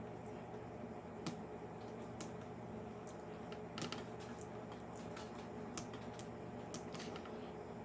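Irregular light clicks and taps of fingers and nails working at tape on the laptop's plastic screen assembly, about one or two a second, over a steady low hum.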